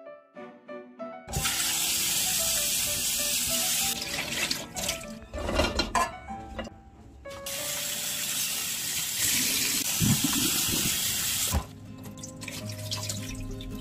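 Kitchen tap running into a sink for a few seconds, then a stretch of knocks and rattles of things being handled, then the tap running again and shutting off abruptly near the end. Soft background music underneath.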